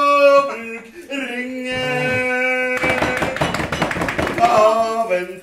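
A man singing a slow blues song, holding long notes and stepping down in pitch, then moving through shorter notes near the end.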